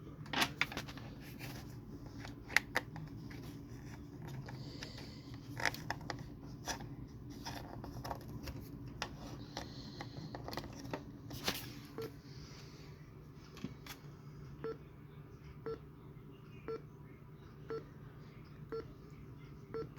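Weather alert radio being handled, with plastic clicks and taps of its buttons, then a short electronic beep repeating about once a second over a low steady hum.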